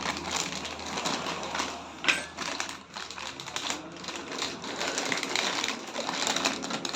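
Irregular light clicks and clatter of small metal parts and tools being handled, with one louder knock about two seconds in.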